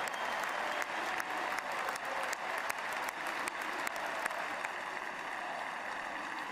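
Football stadium crowd applauding in an ovation, an even wash of clapping with sharp single hand claps close by. The close claps come thick for the first four seconds or so, then thin out.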